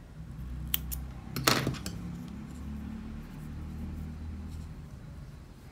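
Metal scissors clicking twice, a light click just under a second in and a louder one at about a second and a half. A soft, low rustle of hands handling yarn and crochet fabric follows.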